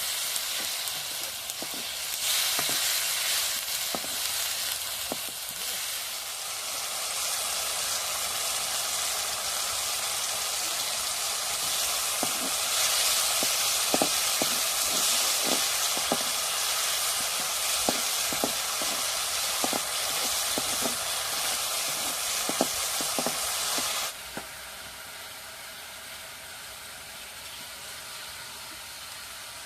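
Food frying in hot oil in a pan, sizzling steadily, with a utensil clicking and scraping against the pan as it is stirred. Near the end the sizzle drops suddenly to a quieter, steady hiss.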